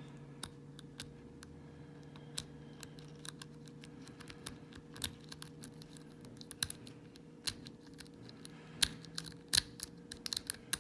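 Lock pick being raked through the pin tumblers of an old brass Corbin padlock: scattered small metallic clicks and scrapes, coming faster and louder over the last few seconds.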